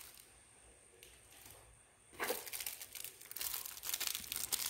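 Near silence for about two seconds, then a clear plastic parts bag crinkling and crackling as it is handled.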